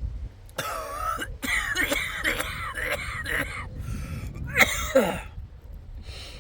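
A man coughing and clearing his throat in a string of bursts lasting about four and a half seconds, loudest near the end.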